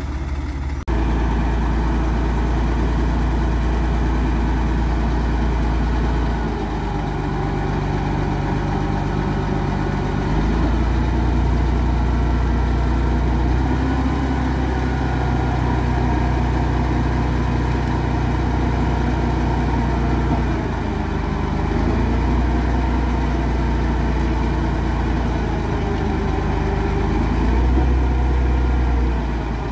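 Shacman dump truck's diesel engine running while the hydraulic tipper raises the body to dump a load of soil; the engine speed shifts up and down several times.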